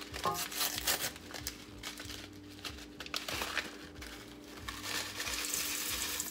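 Paper packet of dry onion soup mix crinkling as it is handled, then the dry mix being shaken out into a stainless steel mixing bowl, a louder hiss in the last second or so.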